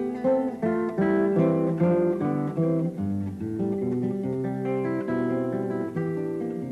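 Background music: an acoustic guitar plucking a lively tune, note after note.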